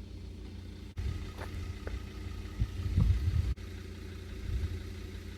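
Car engine idling with a steady low hum, the rumble growing louder for a moment about three seconds in.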